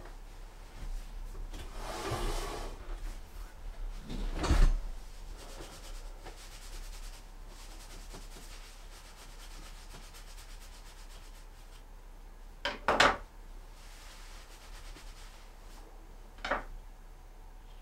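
Quiet handling sounds at a wooden counter: a soft rustle of cloth, then a sharp thump about four and a half seconds in, a quick double knock near thirteen seconds and a lighter knock near the end.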